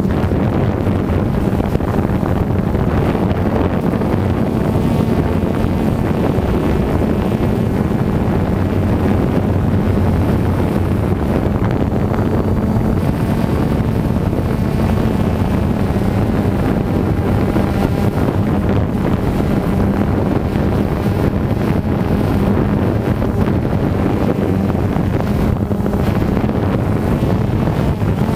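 DJI Phantom 2 quadcopter's four motors and propellers running steadily as it hovers, heard from the GoPro on its airframe, with a steady hum and gusting wind buffeting the microphone.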